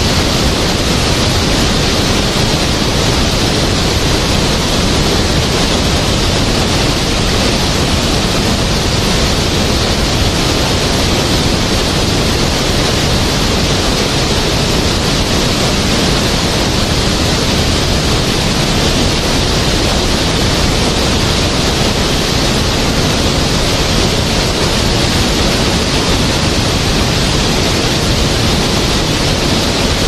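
Waterfall: a loud, steady rush of falling water with no break or change.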